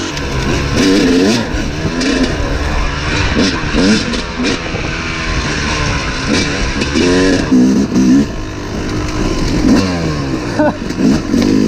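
Yamaha YZ250 two-stroke dirt bike engine revving up and down, its pitch rising and falling again and again with the throttle as it pulls away and rides a rough trail.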